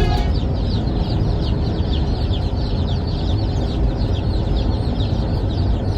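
A large batch of Freedom Ranger broiler chicks peeping together: many short, high, downward-falling peeps overlapping in a continuous chorus, with a low rumble underneath.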